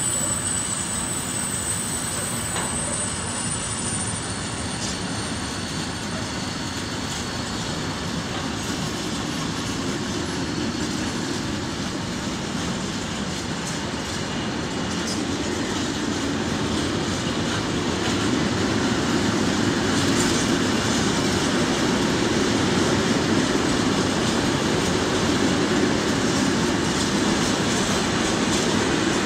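Container wagons of a long freight train rolling steadily past on the rails, growing louder in the second half.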